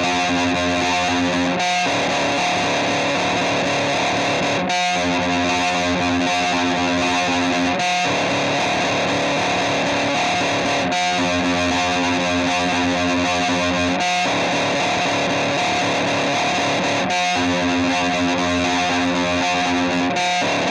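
Heavily distorted, effects-laden guitar drone music. Two sustained chords alternate, each held about three seconds, over a constant low hum.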